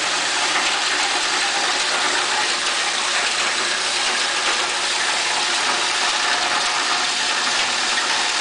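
Nelmor plastic grinder with a 10 horsepower three-phase motor running, giving a loud, steady rushing noise with no breaks or distinct impacts.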